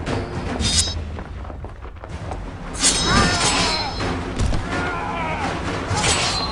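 Battle sound effects over dramatic film music: crashing impacts with ringing clangs, the loudest about three seconds in, and raised voices crying out.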